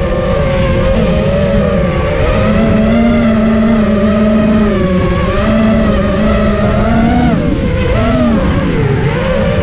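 FPV racing quadcopter's electric motors whining, the pitch rising and falling with the throttle and dipping near the end, over a heavy rush of wind and prop wash on the drone's onboard camera microphone.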